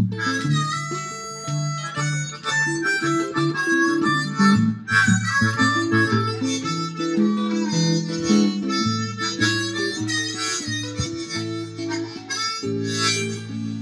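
Blues harmonica playing the lead over guitar accompaniment, with no singing. The guitar holds a line of changing low notes beneath it, and the playing eases off near the end.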